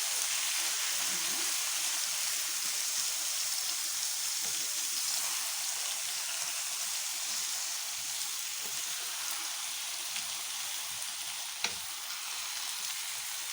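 Liver and onions sizzling steadily in hot oil and fat in a pan, searing over high heat. A single sharp click sounds near the end.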